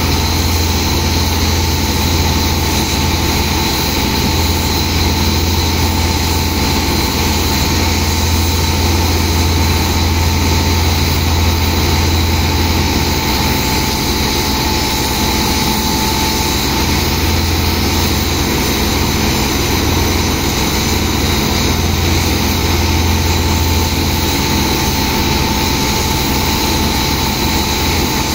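Engine of a sand-pumping rig running steadily, a deep drone with a thin steady whine above it, while it drives the high-pressure water jets and suction that empty sand from a barge's hold.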